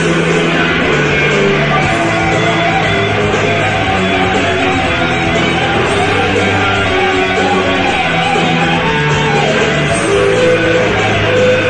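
Live rock music on a rough audience recording: electric guitar played over a drum machine and a pre-recorded backing guitar track, with held bass notes that change every second or two.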